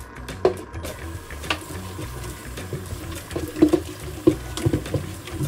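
Kitchen tap running into a stainless steel sink while a clear plastic container is rinsed out under it, with a few short knocks as the container is handled.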